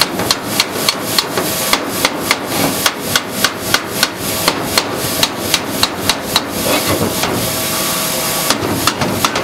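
Hammer blows on a steel truck frame piece, knocking out rivets whose heads have been cut off so the shock mount comes free. Sharp, even strikes about four a second, breaking off for about two seconds before a few more near the end.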